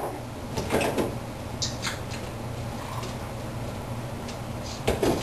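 Kitchen things being handled: several short knocks and clatters of dishes or cupboard doors, loudest about a second in and again near the end, over a steady low hum.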